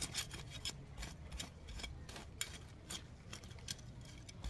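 Small hand trowel digging and scraping in loose garden soil and mulch: a run of short, irregular scratchy strokes.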